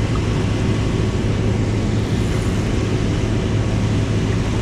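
Steady rushing roar of fast river current, loud and constant, with a low hum running underneath.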